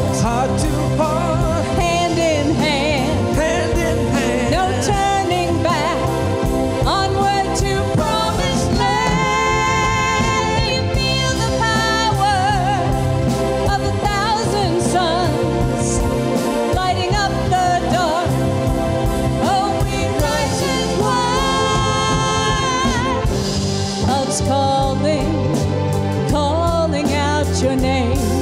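Live band music: a woman singing lead over drums, semi-hollow electric guitar and keyboard, with a steady beat.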